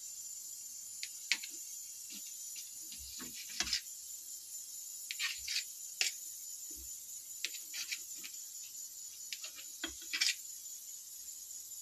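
Knife cutting brown bread slices into small cubes on a steel plate: irregular short cuts and clicks as the blade goes through the bread and taps the metal plate, a dozen or so scattered through, with a few louder knocks.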